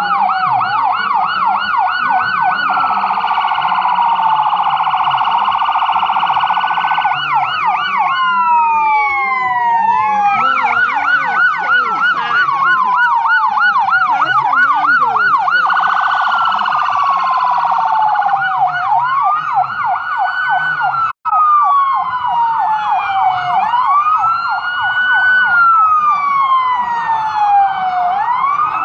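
Several police car sirens sounding at once, overlapping a fast yelp with slower rising-and-falling wails. The sound drops out for an instant about two-thirds of the way through.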